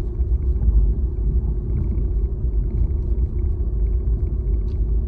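Car moving slowly, heard from inside the cabin: a steady low rumble of engine and tyres.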